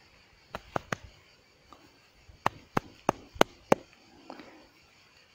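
Hands working a clump of freshly pulled grass, giving a series of sharp snaps or taps: three about half a second in, then five in quick succession about a third of a second apart.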